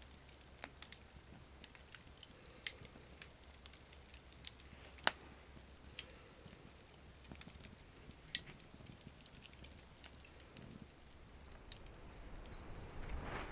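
Faint wood campfire crackling: irregular sharp pops and snaps, one louder pop about five seconds in.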